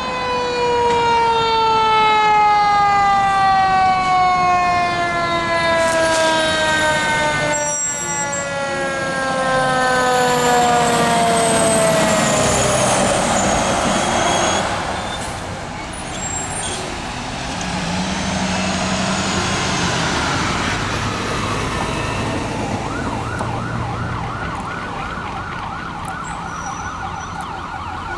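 Emergency sirens from a fire engine and an ambulance responding code 3. A siren holds one long, slowly falling wail for the first dozen seconds or so, then a rising-and-falling wail sounds over traffic noise. A fast warbling yelp takes over near the end.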